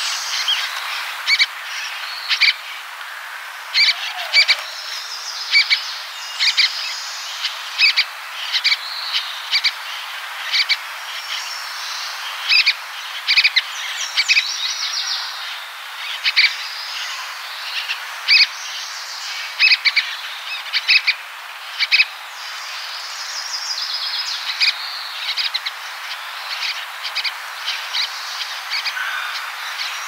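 White-breasted nuthatch calling over and over: short, sharp notes, often two close together, at uneven intervals of about a second. Underneath is a steady background of distant birds.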